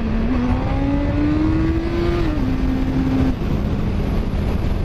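Yamaha FZ1's inline-four engine pulling hard under throttle for a wheelie: its pitch rises for about two seconds, drops, holds briefly and falls back to a steady drone, with wind rush on the microphone throughout.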